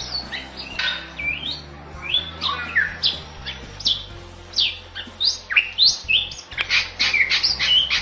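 Bali myna (Bali starling) singing vigorously: a string of sharp whistles and chips, many sliding steeply in pitch, coming thicker and faster in the last second or so.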